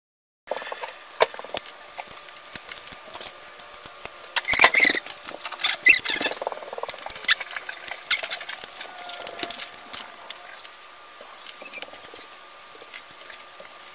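Handling noise of ceiling fan parts being assembled by hand: irregular clicks, taps and scraping of small metal and plastic parts such as the downrod, collar and pins, with a faint steady high hum underneath.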